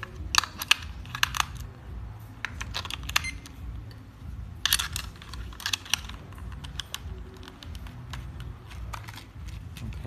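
Hands fitting batteries into a plastic drone remote controller and closing its battery cover: a series of sharp plastic clicks and clatters in short clusters.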